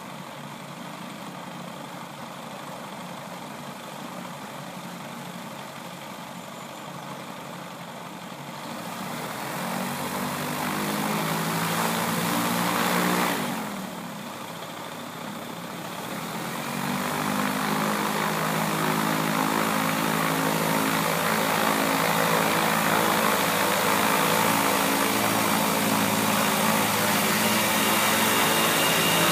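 VPM M16 gyroplane's engine and pusher propeller idling, then running up with a rising pitch about a third of the way in. It drops back suddenly to idle just before halfway, then rises again and holds a steady higher run.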